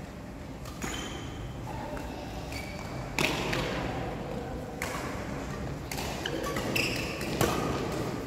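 Badminton rally: sharp racket strikes on the shuttlecock, irregularly spaced a second or two apart.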